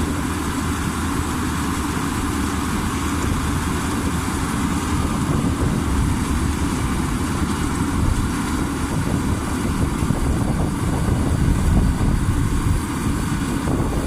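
Crown Sumo 106 combine harvester running, its engine noise steady and growing a little louder in the second half.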